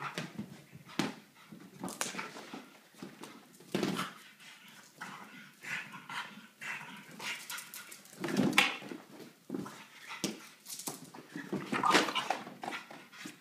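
A French bulldog puppy barking and whimpering while playing with a large inflated ball, amid repeated sharp knocks of the ball and its paws against the floor, stairs and furniture.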